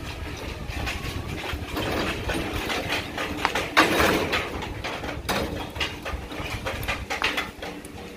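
Rattling and clanking of a food-stall cart's corrugated metal panels and steel frame as it is pushed on its spoked wheels over rough dirt ground. There is a louder clatter about four seconds in.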